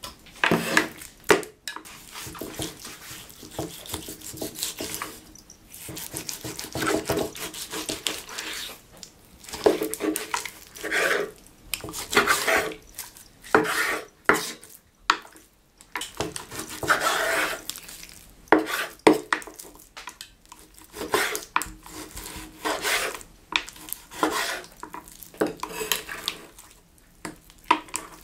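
Chef's knife cutting raw pork neck on a wooden cutting board: irregular sawing strokes through the meat, with sharp knocks of the blade against the board.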